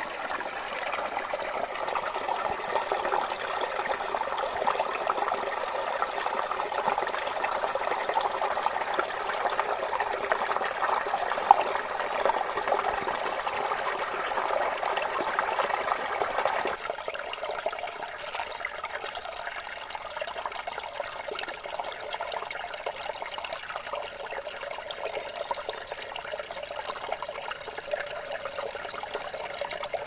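Small forest stream trickling and splashing over rocks in a steady rush. About seventeen seconds in it cuts abruptly to a quieter trickle, with one short click near the middle.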